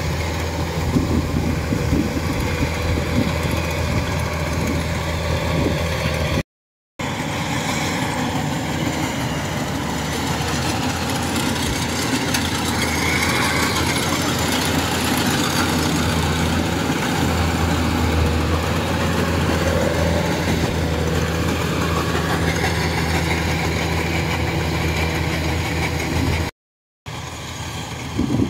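Rice combine harvester running steadily under load while cutting rice: a steady low engine drone with the rattle of the machinery. The sound cuts out briefly twice.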